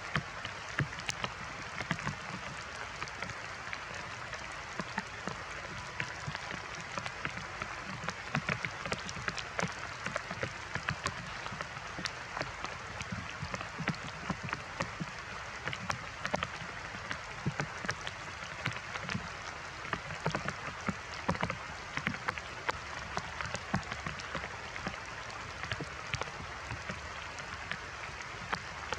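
Steady heavy rain falling, with many separate drops ticking sharply on nearby surfaces.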